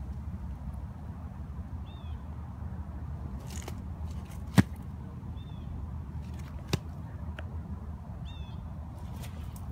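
A steady low rumble with a few short, high bird chirps, and two sharp clicks. The louder click comes about halfway through, the second about two seconds later.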